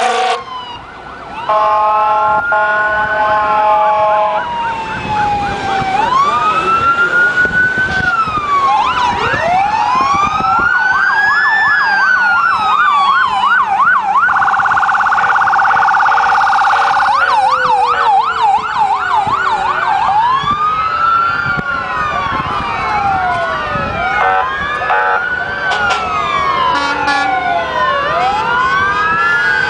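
Several emergency-vehicle sirens sounding at once as parading fire trucks and emergency vehicles pass. Slow wails rise and fall, overlapping one another, with stretches of rapid yelp in the middle. About two seconds in, a steady horn chord of several notes holds for a couple of seconds.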